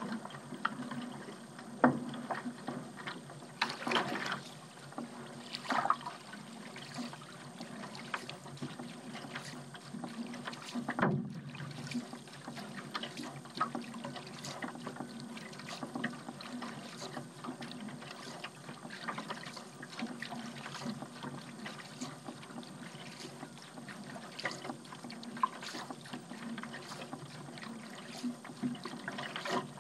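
A paddle dipping and pulling through water, with splashes and drips over a steady wash. A few strokes stand out, the first three about two seconds apart.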